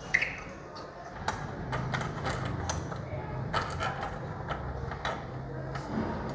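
A screw being driven into a door lock's mounting with a screwdriver: a run of sharp metallic clicks and taps, with a low steady hum through the middle.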